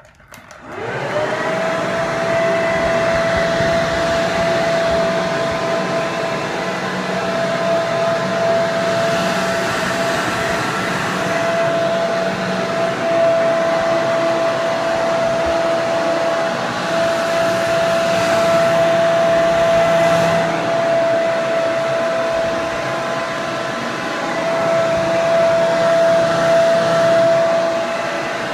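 Hair dryer switched on about a second in, its motor spinning up with a rising whine and then running steadily with a high hum over rushing air.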